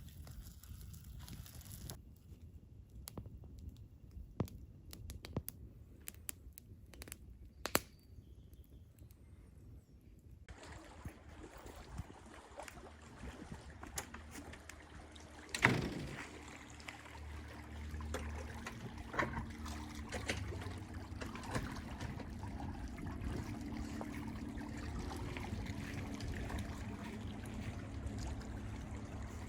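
Water splashing and trickling, with scattered clicks, starting up about ten seconds in, and one sharp knock near the middle.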